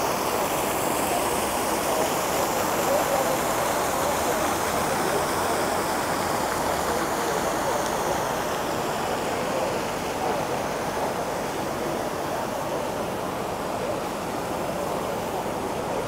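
Fountain water splashing steadily into a reflecting pool, a continuous rushing, with people talking around it. The rushing drops a little in the second half.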